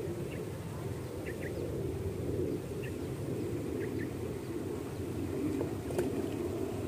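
Small birds chirping a few times in short, high calls over a steady low rumble, with a single sharp click about six seconds in.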